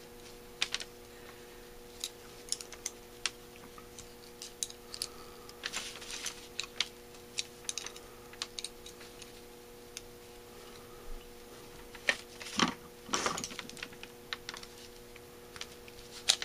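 Irregular small metal clicks and scrapes of a steel pick worked inside a Holley 4000 teapot choke housing, prying at the stuck choke piston. The clicks come in bunches, busiest about halfway through and again about three-quarters in, over a faint steady hum.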